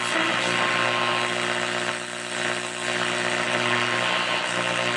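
Hallicrafters SX-28A tube shortwave receiver's loudspeaker putting out a steady hiss with a buzzing mains hum while its tuning knob is turned off a station. The owner calls it noise and suspects electrical interference from a room light.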